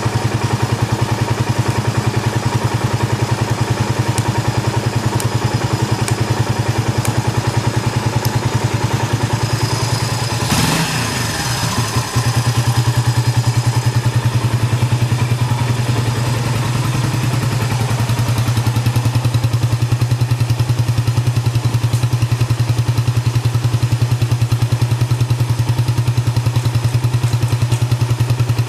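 Yamaha SRX250 single-cylinder four-stroke engine idling steadily with even firing pulses and no abnormal noise, interrupted by a short disturbance and brief dip in level about ten to twelve seconds in before it settles back to a steady idle.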